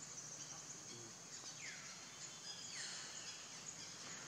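Forest ambience: a steady high-pitched insect drone, with two short whistled calls sliding downward in pitch about a second apart near the middle.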